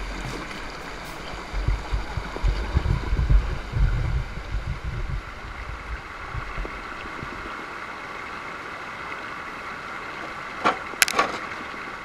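Creek water rushing over rocks in a small cascade, a steady spray. Low rumbling bumps come through in the first few seconds, and two sharp clicks sound near the end.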